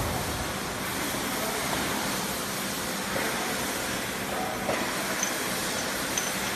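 Automatic round-bottle labeling line running: steady mechanical noise from the conveyor, turntable and labeling heads carrying small bottles, with a few light clicks about five seconds in.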